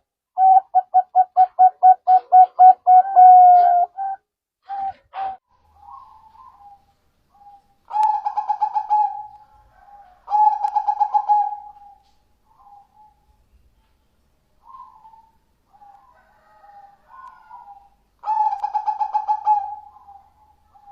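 Zebra doves cooing in their staccato song. There are four rapid trilled phrases of quick repeated notes, the first and longest at the start, with softer coos between them.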